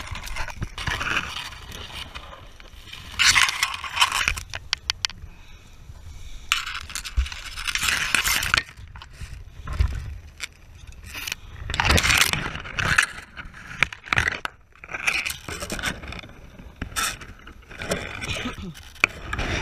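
Stalks of tall marsh grass scraping and rustling close to the microphone as a person pushes through them by hand, in irregular bursts every second or two.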